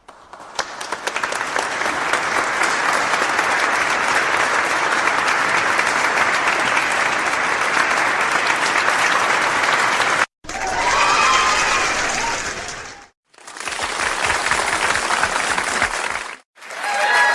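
Stock sound effects of an audience applauding: about ten seconds of steady applause, then after short gaps a few shorter clips of crowd noise, the last with some cheering voices.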